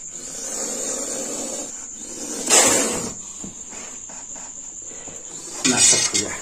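Indian cobra hissing: one loud, forceful hiss about two and a half seconds in. Steady high chirring of crickets runs underneath, and there is a brief rough rustle near the end.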